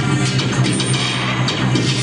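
Industrial noise music: metal objects played through piezo contact microphones, heard as a dense, harsh wash of metallic noise over a steady low electronic drone.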